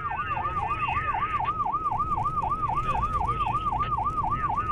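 Emergency vehicle siren in fast yelp mode: a rapid up-and-down wail about four times a second, over the low rumble of a car driving.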